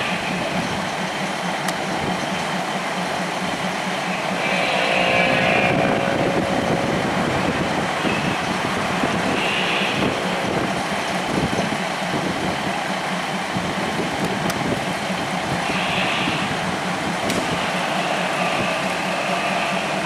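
Diesel-electric locomotive no. 4016 running steadily as it hauls a train of passenger coaches along the track, a continuous engine drone with rolling rail noise. A brief higher pitched sound with several tones comes in about five seconds in.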